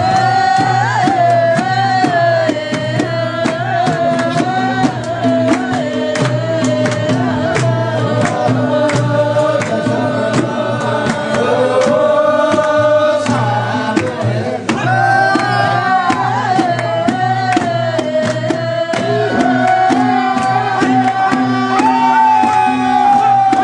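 A salaijo (Nepali folk song) sung into a microphone, the voices passing between singers, with a hand-held frame drum beaten in time throughout. A steady low hum runs underneath.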